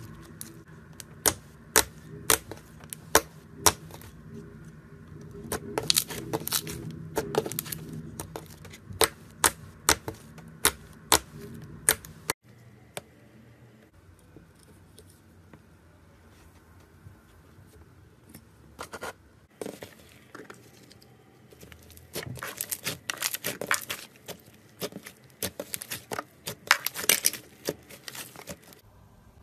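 Slime being stretched, folded and squished by hand, giving irregular small sharp clicks and pops from trapped air. The sound changes abruptly about twelve seconds in and goes quieter for a while, then dense runs of clicks and pops follow as another slime is pressed and worked.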